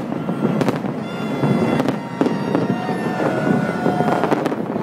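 Fireworks going off overhead in a series of sharp bangs, about four in a few seconds, over the steady noise of a large outdoor crowd.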